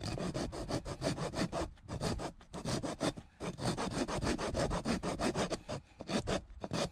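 A rasp worked back and forth through a drilled hole in a beech block, rasping the wood in quick repeated strokes with short pauses between runs. It is smoothing a row of drill holes into the eye of a toy axe head.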